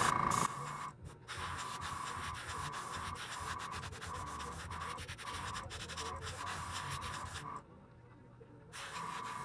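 Airbrush spraying paint in short bursts of hissing air as the trigger is worked. The air cuts off for about a second near the end, then starts again.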